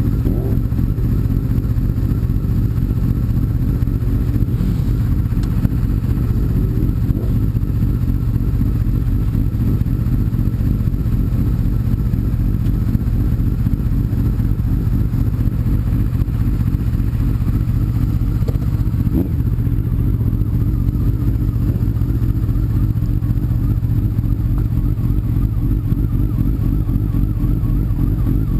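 Sport bike running at a steady cruise on the road: a continuous, even engine and road rumble.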